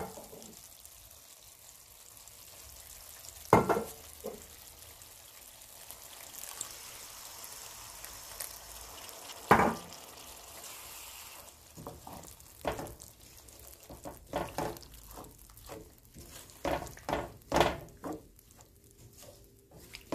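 Chilli-spice masala in oil sizzling in a metal frying pan just after apple cider vinegar goes in, with a wooden spatula knocking against the pan now and then. In the second half the spatula stirs and scrapes in many quick strokes.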